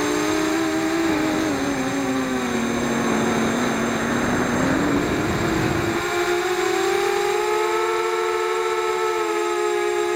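FPV quadcopter's electric motors and propellers whining. The pitch falls over the first few seconds, then climbs back up about six seconds in, over a rushing air noise that cuts out at that point.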